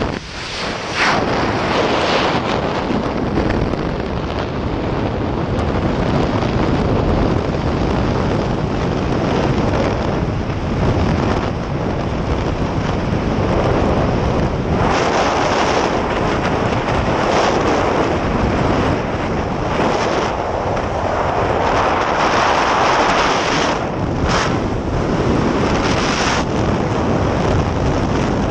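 Loud, steady rush of freefall wind buffeting the camera's microphone during a tandem skydive, swelling and easing a little from moment to moment.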